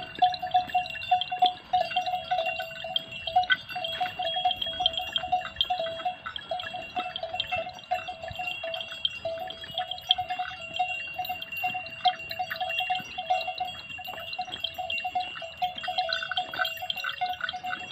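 Bells hung on a herd of cattle and water buffalo, clanking continuously and irregularly, many strikes a second, each ringing on a steady low note and a higher one.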